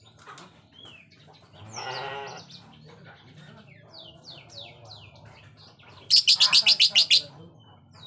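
Lovebird calling: many short, high, falling chirps, a harsh rasping call about two seconds in, and near the end a loud rapid run of about ten shrill chirps within a second.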